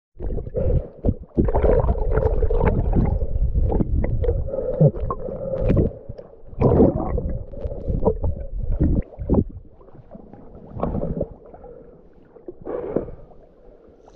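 Muffled underwater river sound picked up by a submerged action camera: a rumble and gurgling of moving water, with scattered knocks. It is loudest in the first six seconds and quieter and patchier after that.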